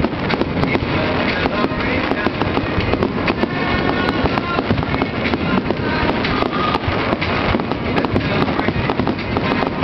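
Fireworks bursting overhead in a continuous barrage of dense, rapid crackling pops with no gap.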